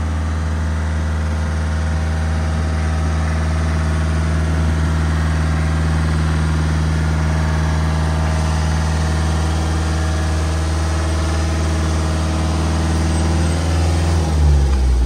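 The engine of a work machine running steadily at idle. Near the end its note shifts and briefly gets a little louder.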